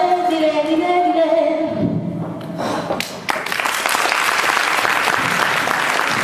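Voices singing the last held notes of a song, which end about two seconds in. After a couple of sharp clicks, an audience breaks into steady applause.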